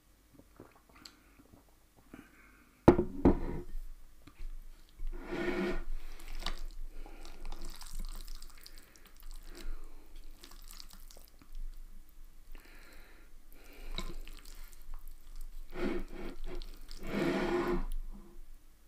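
A glass beer bottle set down on the table with a sharp knock about three seconds in, then wet, sticky squelching in several bursts as sauce-coated Samyang instant noodles are stirred with chopsticks in a glass bowl.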